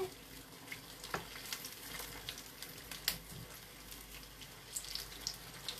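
Sweet potato fritters deep-frying in hot oil: a faint steady sizzle with scattered small crackles and pops.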